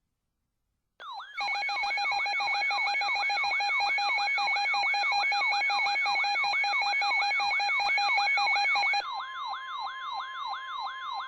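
An electronic siren wails, sweeping up and down about two and a half times a second, over a steady pulsing alarm tone; it starts suddenly about a second in. About nine seconds in, the pulsing tone stops and a single steady weather-radio alert tone sounds under the siren, the signal that a warning broadcast follows.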